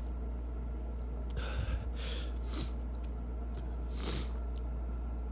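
A person sniffling hard through an itching nose: a quick run of short, sharp sniffs, then one more about four seconds in. This is the nose-itch that comes before a sneeze.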